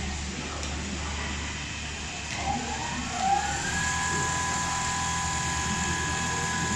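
Richpeace automatic cushion case sewing machine running: its motors whine over a steady low hum. The whine dips and glides back up to a steady pitch about three seconds in, and a fast low pulsing joins it soon after.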